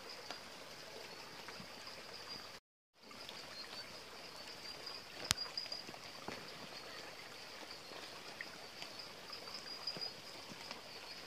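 Shallow creek water trickling and running over rocks, faint and steady, with a thin steady high-pitched tone over it. The sound cuts out completely for about half a second around 2.5 seconds in, and there is one sharp click about 5 seconds in.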